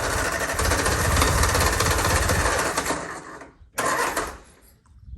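Classic Mini's A-series engine being started: it turns over for about three seconds and then stops. A second, shorter attempt follows about a second later.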